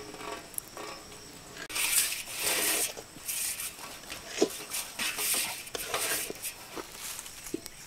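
A spatula stirring and scraping a pan in a series of hissing strokes, with a few sharp knocks against the pan.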